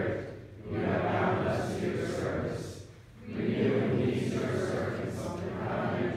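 A prayer recited aloud, echoing in the church, in phrases broken by two short pauses.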